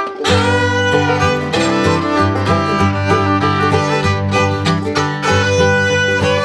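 Background music with fiddle and plucked strings in an upbeat bluegrass style.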